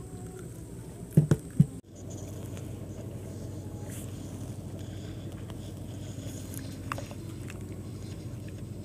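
Three loud hollow knocks in quick succession about a second in, as gear bumps the small fishing boat, then the sound cuts out briefly. After that there is a steady low hum of the river surroundings, with a single faint click near the end.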